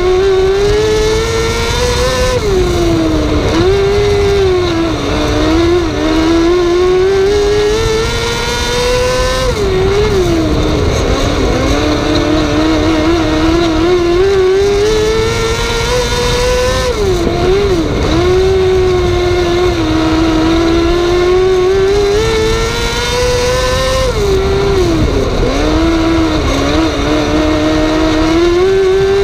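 Onboard sound of a wingless 600 micro sprint car's 600cc motorcycle engine at race speed, loud. Its pitch climbs steadily along each straight and dips and wobbles through each turn, repeating about four times, once per lap.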